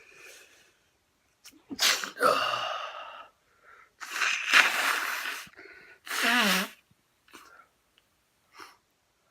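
A man sneezing three times in quick succession, each sneeze led in by a short intake of breath; the third ends in a voiced 'choo' that falls in pitch. Two short faint breaths follow near the end.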